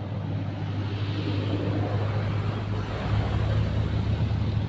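A motor engine running steadily with a low hum that grows louder, deepening and strengthening about three seconds in.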